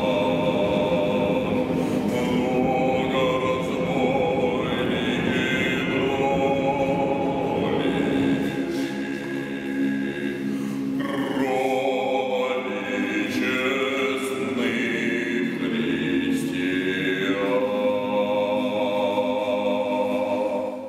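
Choral music on the soundtrack: voices singing slow, sustained chords in a chant-like style, changing every few seconds and cutting off at the very end.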